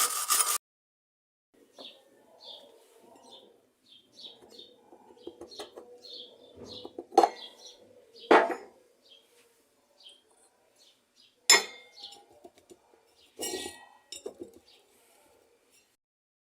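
Four sharp metal clinks and light scraping of a tool working at rusted washing-machine transmission parts, with birds chirping in the background.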